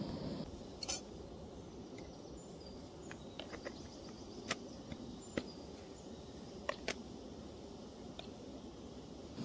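A handful of sharp, short clicks and taps of a camping mug and cookware being handled, scattered through, over a faint steady outdoor background. A louder steady hiss drops away about half a second in.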